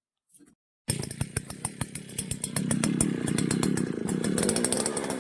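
A small engine-driven power tool running, starting abruptly about a second in, its pitch wavering up and down, with many sharp clicks and rattles.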